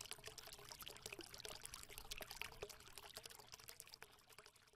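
Faint trickling, crackling sound like water being poured: a scatter of small irregular ticks over a soft hiss, dying away a little before the end.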